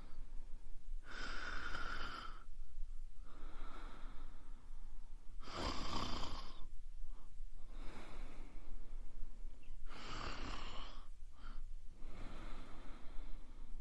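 A woman snoring, a regular breathing cycle with three loud snores about four seconds apart and softer breaths between them.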